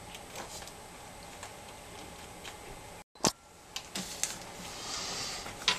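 Scattered light clicks and taps of seashells being set and pressed into hot glue along the edge of a canvas. There is a brief dropout about three seconds in, followed by the sharpest click.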